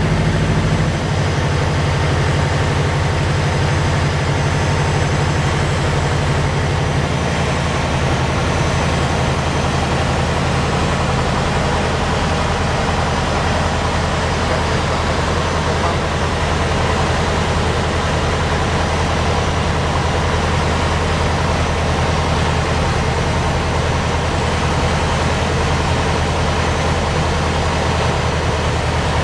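Lycoming O-320 four-cylinder air-cooled aircraft engine and its Warp Drive propeller running steadily, heard from inside the cockpit with wind rush, on approach to land; the engine note drops slightly about a second in.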